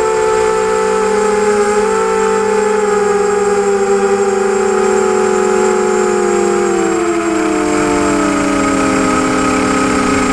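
Brushless motors and propellers of a ZMR250 quadcopter whining in flight, several close pitches sounding together; about six seconds in the pitch slides steadily down as the motors slow.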